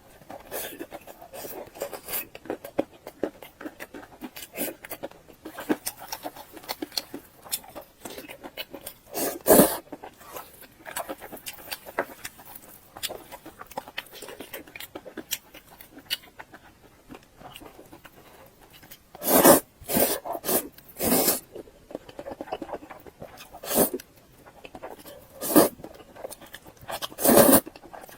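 Close-miked eating sounds of someone eating fried chicken: a steady run of small wet mouth clicks and chewing, with louder bites or crunches every few seconds, most of them in the last third.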